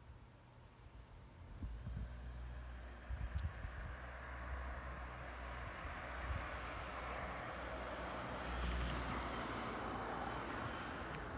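An insect trilling steadily in a continuous high pulsing trill, over a low rumble; a broad rushing sound swells about two-thirds of the way through and then eases off.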